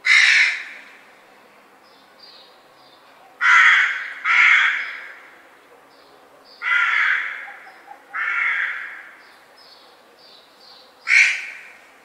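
A crow cawing six times: single harsh caws a few seconds apart, two of them in quick pairs. Faint short high chirps are heard between the caws.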